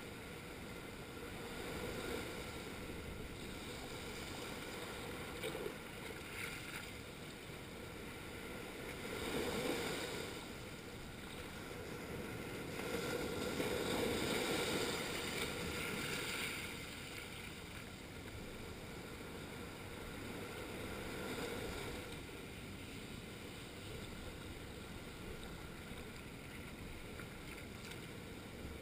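Small waves breaking and washing over flat reef rock at the shoreline. There is a steady wash of water, which swells about ten seconds in and is loudest around the middle as a wave breaks across the rock shelf.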